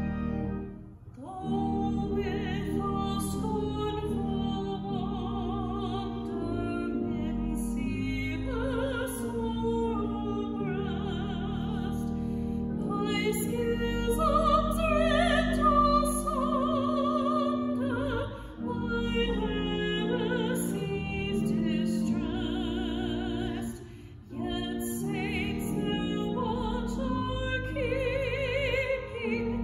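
A woman singing a hymn solo with vibrato, accompanied by sustained organ chords. The sound breaks briefly between phrases, about a second in and again twice later.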